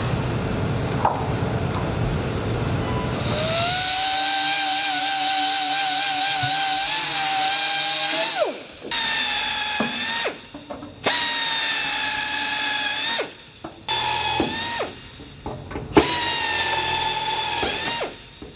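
Cordless drill drilling out the heads of aircraft rivets in aluminium wing skin. A rough grinding noise comes first, then a steady high motor whine that winds down about eight seconds in. After that the drill runs in four or five shorter bursts, each starting and stopping abruptly.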